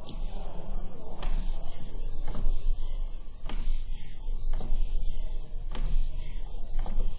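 The hobby servo motors of a small four-legged walking robot whirring steadily as it walks. A sharp tap comes about once a second as its metal feet land on the table.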